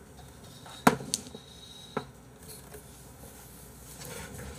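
A few sharp knocks and clatters as a wooden tray holding two ceramic noodle bowls is set down on a desk, the loudest about a second in and another about two seconds in.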